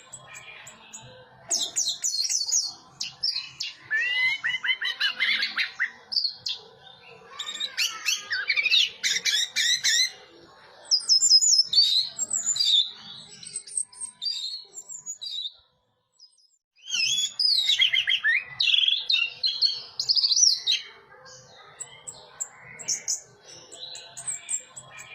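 Orange-headed thrush singing: bursts of rapid, high, sweeping phrases with short pauses between them, and a brief silence about two-thirds of the way through.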